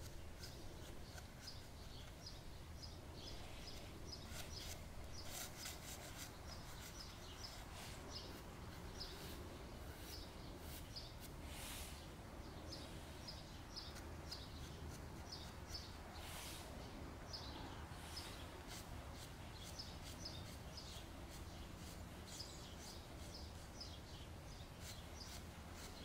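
Dry pastel stick scratching and rubbing across sketchbook paper in short strokes, with short high chirp-like ticks in quick runs over a faint steady outdoor background.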